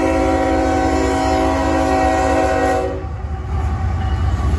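Air horn of CSX 3140, a GE ES44AH diesel locomotive, sounding a steady multi-note chord for a grade crossing, cutting off about three seconds in. The locomotive then passes close by with a loud rumble and rail clatter.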